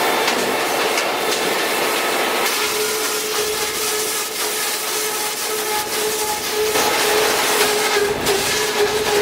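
Chainsaw running steadily at high revs, a constant engine note over a dense rasping hiss, as in cutting into a tree.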